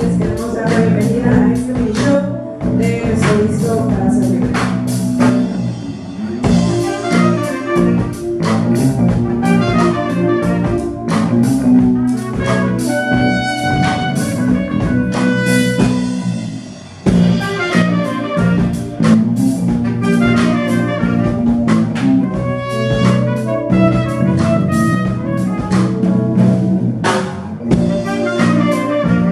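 A live band playing soul-jazz: drum kit and electric bass under saxophone and trumpet lines. The band drops out briefly a little over halfway through, then comes back in.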